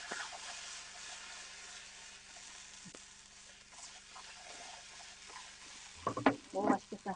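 Whole garlic cloves sizzling in a frying pan as the pan is tossed, a steady frying hiss with a few light clicks. A voice breaks in near the end.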